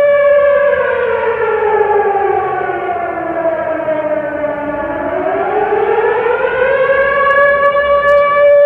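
Factory siren sounding: its steady tone slides down about an octave over some four seconds, then climbs back to its original pitch and holds steady again.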